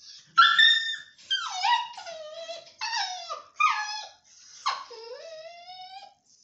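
Puppy crying and whining, about five high-pitched cries that mostly fall in pitch, the last one long, dipping and then slowly rising. It is distressed at being tied up on a chain and trying to get free.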